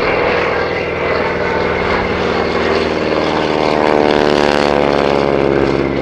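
Grumman Ag Cat biplane's radial engine and propeller passing close by. The engine's drone peaks about four seconds in, and its pitch falls as the plane goes past.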